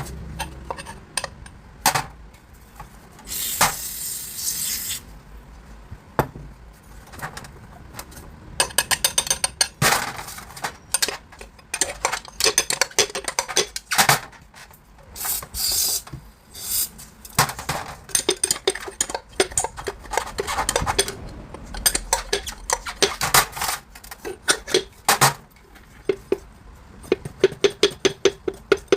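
Metal hand tools clinking, knocking and scraping during car repair work, with several quick runs of clicks.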